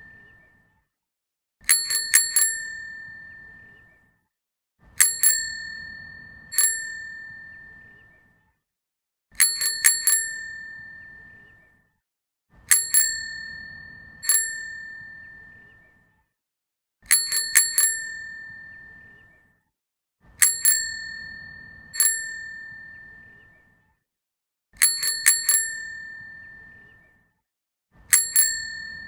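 Bicycle bell rung over and over in quick clusters of two to four dings, each ringing out with one high tone before the next cluster a few seconds later.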